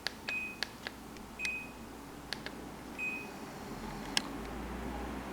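Air conditioner beeping in reply to remote-control presses of the fan button: three short high beeps among several sharp clicks of the buttons, with one louder click about four seconds in.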